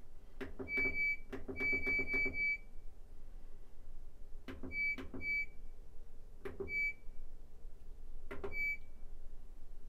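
GE Adora washing machine's control panel beeping as its buttons are pressed to set and start a normal cycle. Each short, high beep comes with the click of a press: a quick run of four near the two-second mark, then single or paired beeps every couple of seconds.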